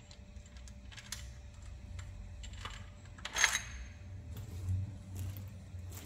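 Hand tools and metal engine parts clicking and clinking during engine teardown, with one loud ringing metal clink about three and a half seconds in.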